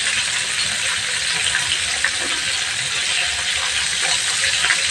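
Chicken pieces frying in hot oil in a wok: a steady sizzle with small scattered pops. Near the end, metal tongs turn the pieces in the pan.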